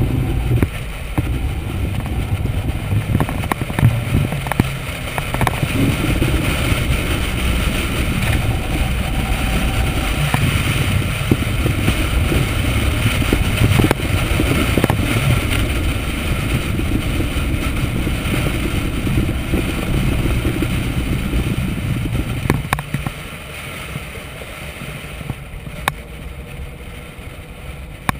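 Corvette V8 engine running at steady part throttle on a track lap, mixed with wind and road noise. About three-quarters of the way through, the sound drops noticeably, and a few sharp clicks follow.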